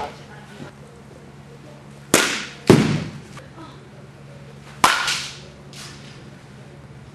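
Softball bat hitting softballs: sharp cracks that fade quickly. Two come about half a second apart a couple of seconds in, the second the loudest, and another comes near five seconds.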